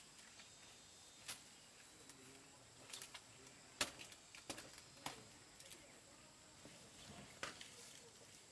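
Quiet background with a few scattered light clicks and knocks, the sharpest just before the middle.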